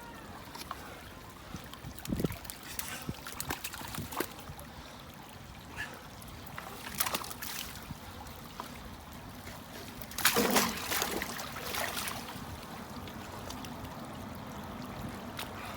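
Wet mud squelching and sucking as feet sink into a bog and are pulled back out, with scattered irregular wet clicks and splats. A louder, longer splashy squelch comes about ten seconds in.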